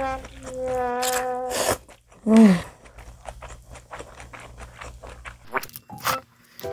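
A person slurping and chewing a long mouthful of pho rice noodles, with many small wet mouth clicks. It opens over a held humming tone for about the first two seconds, and a short, loud falling tone comes just after.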